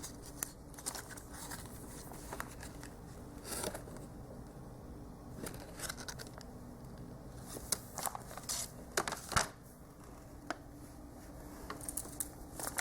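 Scissors snipping and plastic packaging rustling in short, scattered bursts.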